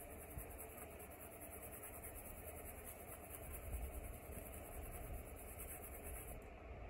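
Quiet room tone: a faint, even hiss over a steady low hum, with no distinct events.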